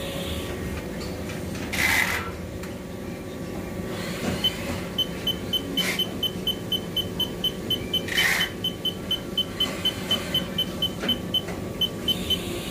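Haas VF-4SS vertical machining centre running a program under coolant: a steady machine hum with two brief whooshes. From about four seconds in, an even series of short high beeps sounds about three times a second and stops near the end.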